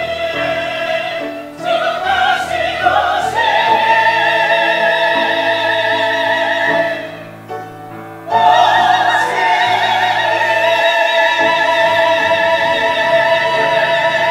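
Mixed church choir singing the closing phrase of a Korean anthem: a sustained chord, a brief break about seven seconds in, then a long final chord held with vibrato.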